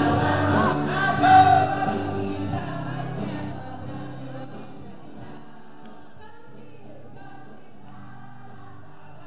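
Gospel song with singing over backing music, loud at first and fading down over about four seconds to a quieter, steady level.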